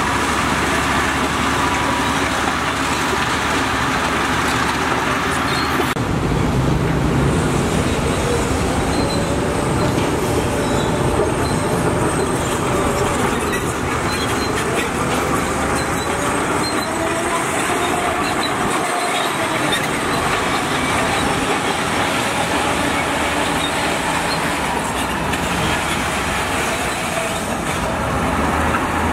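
Heavy diesel earthmoving machinery working: a steady engine drone with metal squeals and clanking. The sound changes abruptly about six seconds in.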